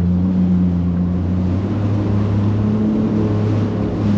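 A small boat's motor running steadily at moderate speed, a low hum that rises slightly in pitch about halfway through, with water and wind noise underneath.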